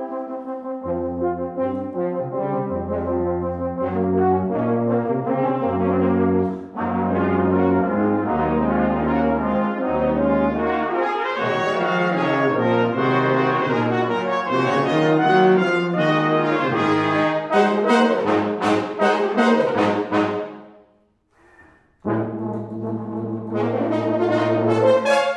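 Brass quintet of two trumpets, French horn, trombone and tuba playing a fast, loud piece: the tuba plays a line of low notes under held chords, then the parts break into busy short notes. Near the end the whole group stops for about a second, then comes back in loud.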